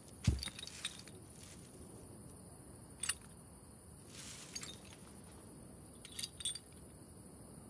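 A soft thump, then a few scattered light clicks and clinks over a faint steady hiss.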